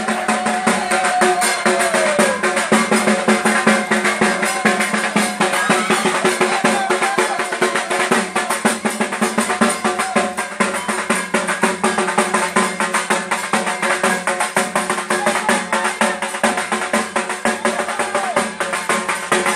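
Rapid, continuous drumming, dense strokes with no pause, over a steady pitched hum.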